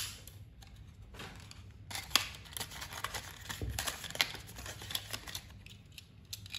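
Cardboard toy box and plastic packaging handled as a small diecast toy truck is slid out: scattered light clicks, taps and scrapes.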